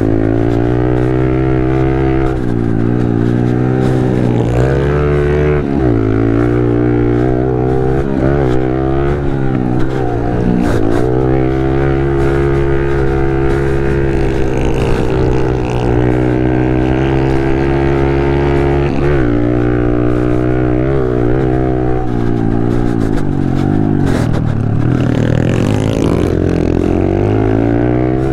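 Pit bike engine being ridden hard, revving up and down with the throttle and gear changes, its pitch rising and falling every second or two.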